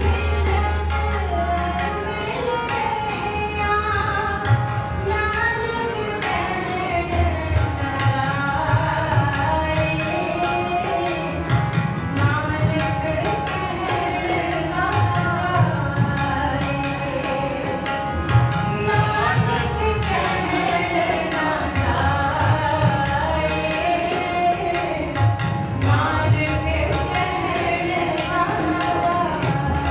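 Sikh kirtan: a woman singing a devotional hymn, accompanied by harmoniums holding steady sustained notes and tabla with deep bass drum strokes.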